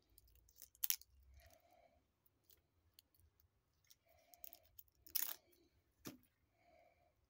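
Stainless steel watch bracelet and folding clasp being handled: a few faint, sharp metallic clicks and clinks as the clasp and links are worked, the loudest about five seconds in.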